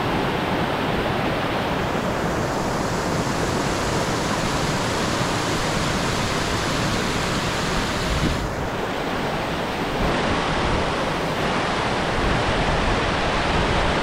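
Flowing stream water rushing steadily, with a brief dip about eight and a half seconds in.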